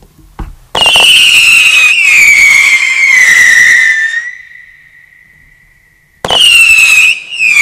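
Lesli 'Three stage trouble' whistling firework, which gives a loud, shrill whistle that slowly falls in pitch for about three seconds. It then fades to a thin, faint whistle. A second loud whistle breaks out near the end, the next stage.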